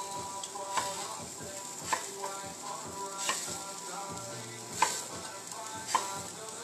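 Sausages sizzling in a frying pan, a steady hiss, with a fork clicking against the pan about five times as they are poked.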